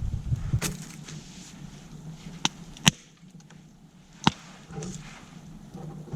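Four sharp clicks or knocks at uneven intervals, with low rumbling handling noise at the start.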